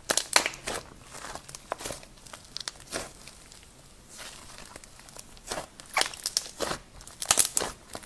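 Slime being squeezed, pinched and stretched by hand, giving off clusters of small crackles and pops, with a quieter spell of a second or so in the middle.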